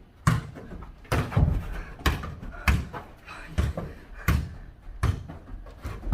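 A ball in a jokgu (foot volleyball) rally, bouncing on a hard floor and being kicked back and forth: a string of sharp thuds, about one every half second to second.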